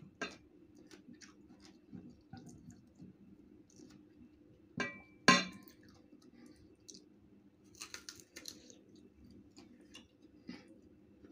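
Close-up mouth sounds of biting and chewing crisp slices of unripe green mango, with light clicks of the slices touching a ceramic sauce bowl and plate. Two sharp clicks about five seconds in are the loudest.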